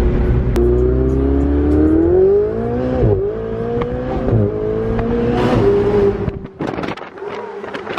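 Ferrari 488's twin-turbo V8 accelerating hard: the engine note climbs in pitch, drops with a quick upshift about three seconds in and again about a second later, then holds steady before easing off near the end.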